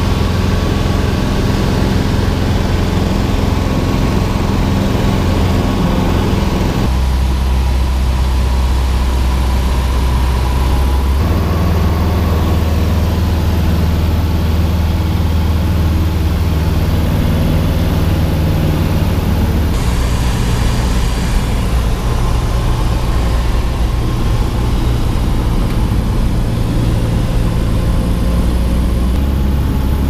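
Cessna 150's four-cylinder Continental O-200 engine and propeller droning steadily in flight, heard from inside the cabin. The engine note jumps to a different pitch several times.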